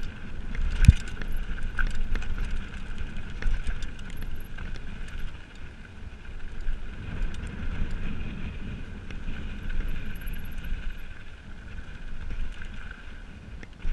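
Mountain bike rolling down a dirt singletrack: tyres on dirt, the bike rattling and clicking over bumps, with wind rumble on the microphone. A sharp knock about a second in.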